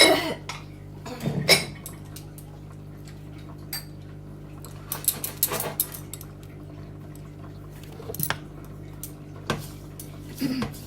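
Metal spoon clinking and scraping against a cooking pan while panch phoron spices are stirred and roasted in oil, over a steady low hum. The loudest clink comes right at the start.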